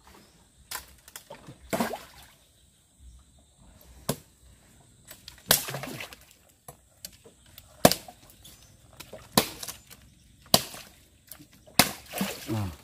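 A parang (machete) chopping at wood: about eight sharp strikes spaced irregularly, one to two seconds apart.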